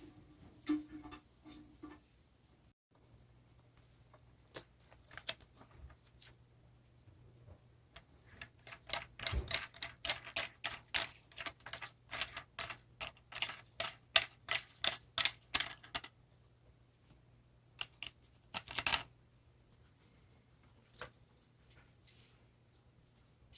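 Rapid sharp metallic clicking from a socket wrench's ratchet, worked on a toilet tank-bolt nut, in a dense run of several clicks a second lasting about eight seconds, with scattered single clicks before and after.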